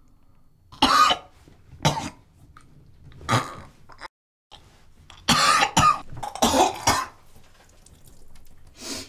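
A man coughing and gagging in a run of harsh, strained bursts, the thickest cluster coming in the second half. The sound cuts out completely for a moment midway.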